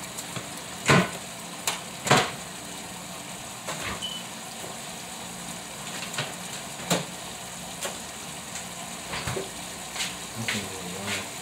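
Beef strips in gravy sizzling in a frying pan, with a handful of short sharp clicks and knocks, the loudest two about one and two seconds in.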